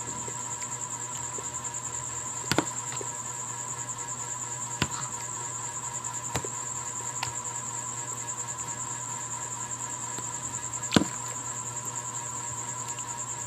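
Spoon stirring buko salad in a container, knocking against it a few times with sharp clicks, the loudest near the end. Behind it runs a steady high, rapidly pulsing insect trill.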